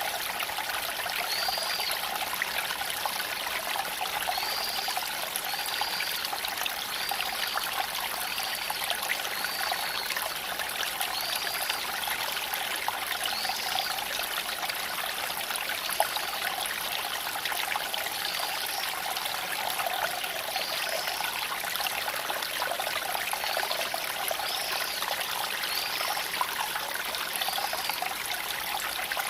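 Creek water flowing and trickling over stones in a steady rush. Short high chirps repeat every second or two over the water, and a single sharp click comes about halfway through.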